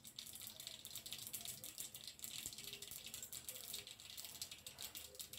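Mustard seeds sizzling in hot oil, a faint, fine, rapid crackle: the seeds heating for tempering, just before they splutter.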